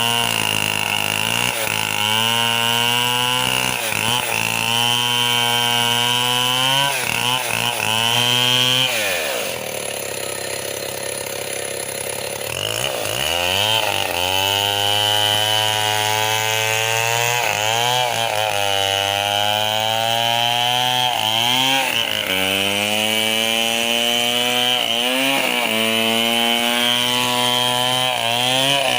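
Petrol chainsaw running at high revs while cutting wood, its engine note sagging and recovering again and again under load. About nine seconds in it drops to idle for about three seconds, then revs back up and cuts on.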